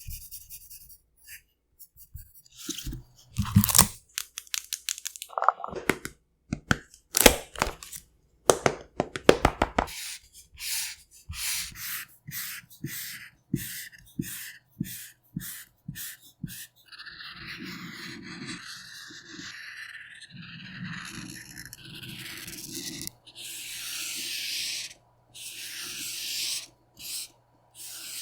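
Paper being handled and drawn on: sharp crackles and crinkles of paper, then longer scratchy strokes of a pen or marker across the paper.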